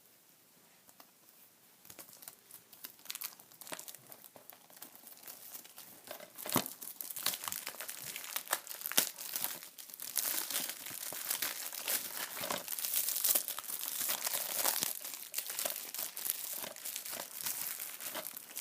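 Plastic wrapping on a DVD case being crinkled and torn open by hand. It starts faint and sporadic and becomes a dense, louder crackling from about six seconds in.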